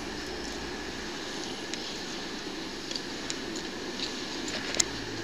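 Steady background rumble of road traffic, with a few light, sharp clicks; the sharpest comes near the end.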